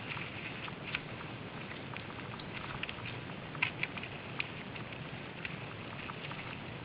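Mountain bikes and riders moving over a rocky, leaf-covered trail: irregular crunches, clicks and rattles over a steady low rustling hiss, with a couple of sharper knocks about halfway through.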